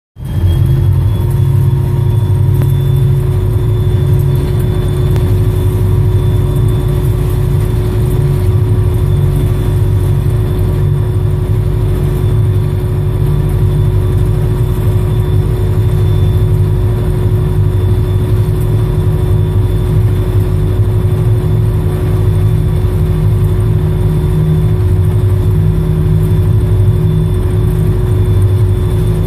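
EMD SD40-2 diesel-electric locomotive running steadily, heard from its cab: the 16-cylinder two-stroke engine's heavy low rumble, with a thin steady whine over it as the locomotive rolls along the track.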